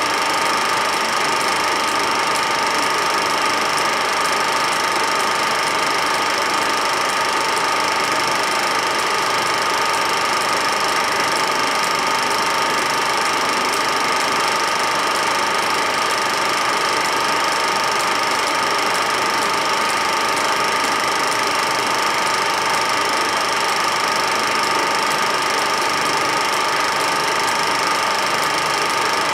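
Film projector running: a steady mechanical whirr with a couple of fixed high whining tones, unchanging throughout.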